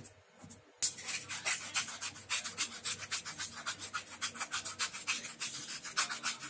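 Hand-twisted herb and salt grinder being worked over dough, a rapid gritty rasping of many strokes a second that starts about a second in and carries on steadily.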